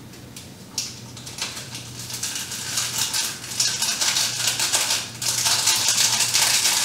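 Small foil packet of instant ramen soup base being shaken out over a pot: a quick crinkle and rattle of the packet and its powder. It thickens and gets louder in the second half and stops near the end.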